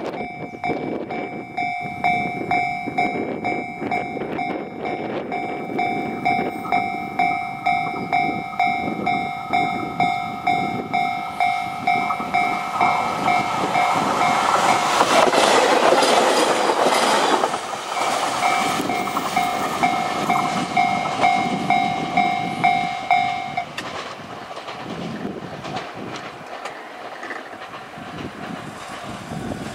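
Level crossing alarm ringing a steady two-tone ding about twice a second while a SAT721 series electric train passes over the crossing. The train's rumble and wheel clatter are loudest between about 12 and 18 seconds in. The alarm stops at about 24 seconds in, and only the fading train is left.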